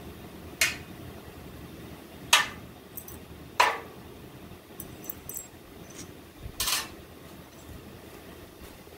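Steel bolts, nuts and washers set down on a painted steel truck frame rail: four sharp metallic clinks a second or two apart, with a few lighter taps between them, over a steady low hum.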